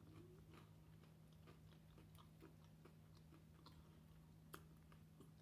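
Near silence: faint chewing with soft mouth clicks from a person eating an egg and cheese sandwich, over a steady low hum. One sharper click comes about four and a half seconds in.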